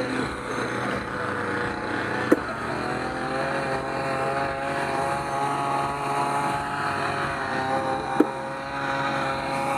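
Quad chairlift running: a steady mechanical hum with a few held tones, broken by two sharp knocks, one about two seconds in and one near the end.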